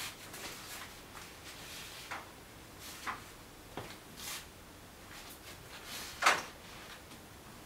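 Scattered light rustles and small knocks of packing paper and a laptop being handled on a desk, with one louder brief rustle about six seconds in.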